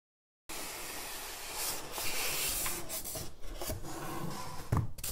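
Styrofoam packing shell rubbing and scraping against cardboard as it is slid out of the box, with a short dull knock near the end.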